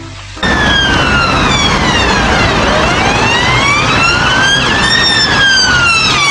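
Police car siren in a slow wail: the pitch slides down, climbs back up, then falls again, over a steady rushing noise. It starts abruptly about half a second in and cuts off sharply at the end.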